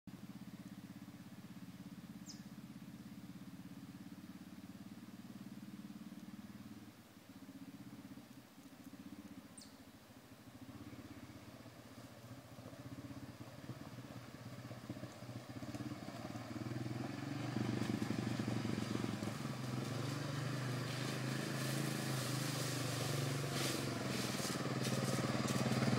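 ATV engine approaching, faint at first and growing steadily louder over the second half as the quad comes closer.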